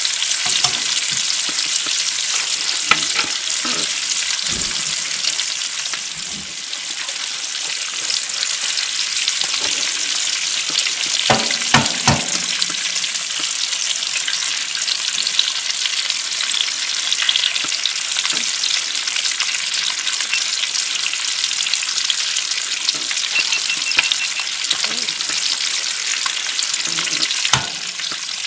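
Sausage slices sizzling in a frying pan, a steady hiss of hot fat, with the scrape and clink of a spoon turning them and a cluster of knocks midway. Near the end a sharp knock as an egg is cracked and dropped into the pan.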